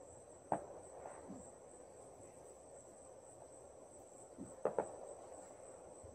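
Night chorus of crickets trilling steadily at a high pitch, with a few sharp pops: one about half a second in and a quick double pop near the end.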